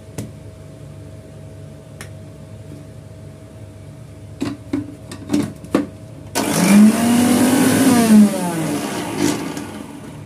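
Electric mixer grinder running its steel jar of frozen mango chunks: a few light clicks, then about six seconds in the motor starts, its whine rising in pitch, runs for about three seconds and winds down as it is switched off.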